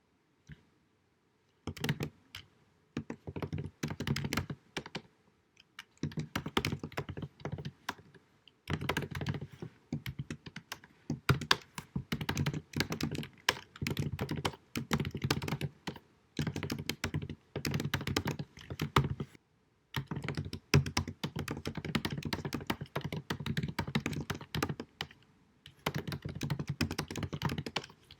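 Fast typing on a computer keyboard, rapid key clicks in bursts of a second or two with brief pauses. The recording is deliberately low quality.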